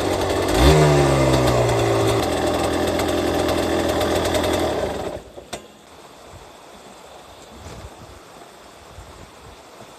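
Yamaha DT200WR two-stroke engine idling, blipped once about a second in, then cutting out about five seconds in. A stream's running water is then heard faintly.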